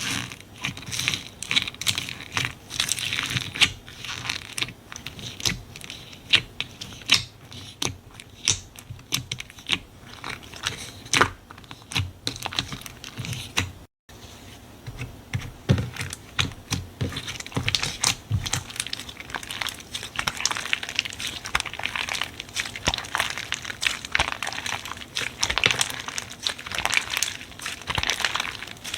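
Slime being squeezed and poked by hand: a dense run of crinkly clicks, pops and crackles, with a very short break about halfway through.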